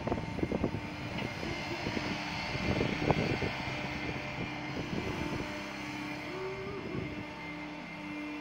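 Spider excavator's diesel engine and hydraulics running under load with a steady hum as the machine works its boom and legs. Irregular low knocks over the first three seconds or so, and a brief rise in pitch about six and a half seconds in.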